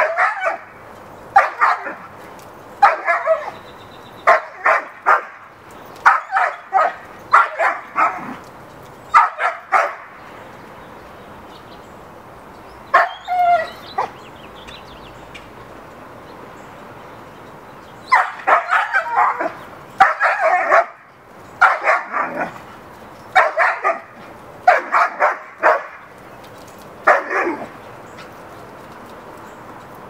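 Dog barking repeatedly in quick runs of two to four barks. About halfway through there is a pause of several seconds, broken by one longer call.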